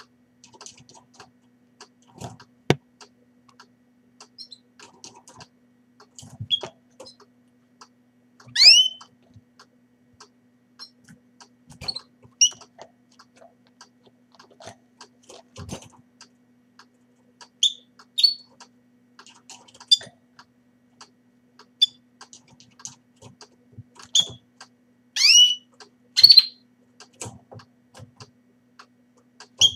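Fife canaries calling at the nest: scattered short chirps, with a few louder, sharply falling calls, two of them close together near the end. Occasional soft clicks and a faint steady hum lie underneath.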